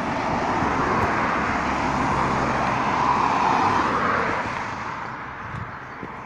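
Cars passing along a road, the rush of tyres and engines swelling to its loudest about three to four seconds in and then fading away.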